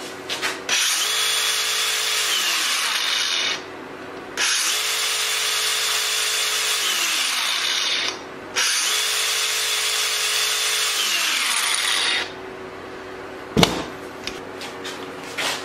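Angle grinder with a steel shaft adapter on its spindle in place of a disc, run free three times for about three seconds each, its whine falling away as it winds down after each release. A sharp knock near the end.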